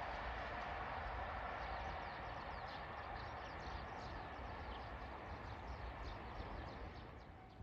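A limited express train's rumble on the rails fades steadily as it recedes from the station, while many short, high chirps of small birds sound over it.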